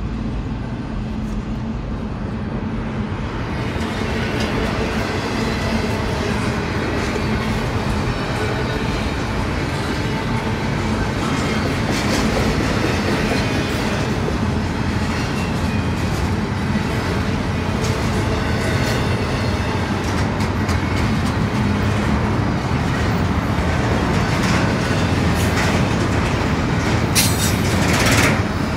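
Double-stack intermodal freight train's container well cars rolling steadily past, with a continuous rumble and wheels clicking over the rail joints. It grows louder about four seconds in, and a brief, sharp burst of noise near the end is the loudest moment.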